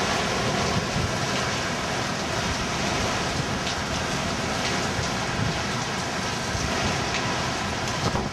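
Steady storm rain falling and pattering on surfaces, with a few separate drops ticking.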